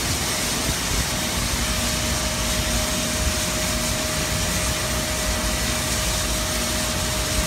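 Santa Fe 3751, a 4-8-4 steam locomotive, heard close by with a steady hiss and low rumble; a steady whine comes in about a second in.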